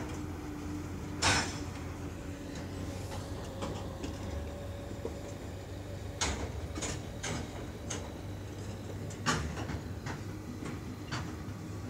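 Covered hopper wagons rolling slowly by, their wheels giving sharp, irregular metallic knocks over the rail joints, a few in quick succession. A steady low hum runs underneath.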